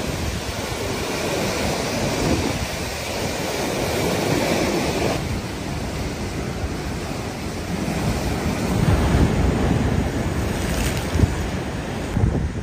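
Rough sea: heavy surf breaking and churning over rocks, a continuous rushing wash that surges louder in the second half.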